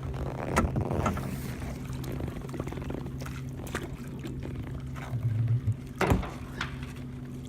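Water splashing and knocks around a small boat, over the steady hum of the boat's motor, with the strongest knock about six seconds in, as a hooked catfish is worked alongside and landed.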